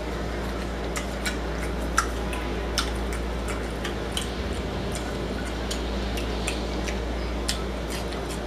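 Close-up eating sounds of a person chewing crispy fried chicken wings and tearing meat from the bone: irregular small clicks, crunches and wet mouth sounds, over a steady low hum.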